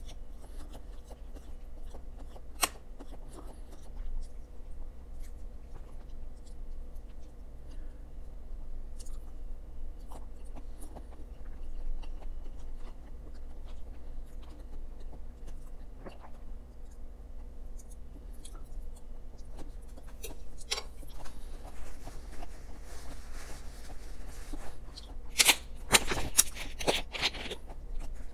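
Eating sounds: a metal fork clicking and scraping in a plastic takeout bowl of bibimbap, with chewing. Near the end, a run of loud crackles and clicks as a plastic water bottle is picked up and drunk from.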